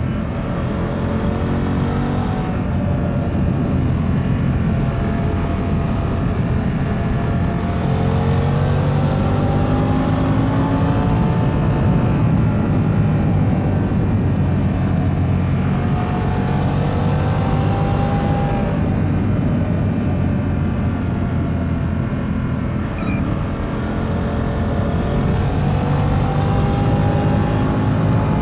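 Harley-Davidson Pan America's 1250 cc Revolution Max V-twin on its stock exhaust, pulling hard at road speed. The engine note climbs several times as it accelerates and drops back between the climbs.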